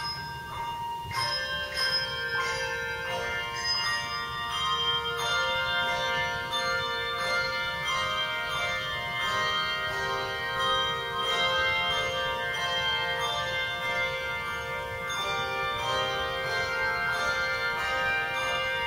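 A ten-member handbell choir playing: many struck bells ringing in overlapping chords, each note sustained. The ringing grows fuller about a second in.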